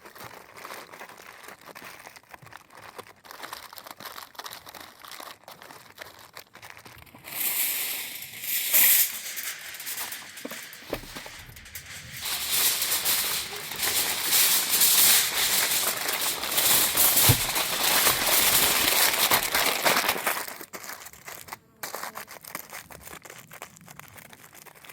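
Aluminium foil crinkling and crumpling as it is folded and wrapped by hand around a food packet, loudest in two longer bouts in the middle, then dying down.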